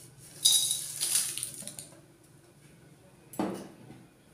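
Dry whole spices (dried red chillies, bay leaves and whole garam masala) tipped off a ceramic plate into an empty aluminium kadai, clattering and clinking against the metal for about a second. A single sharp knock follows about three seconds later.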